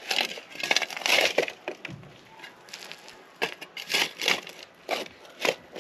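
Shovel digging into dirt and debris: a string of short, irregular crunching scrapes.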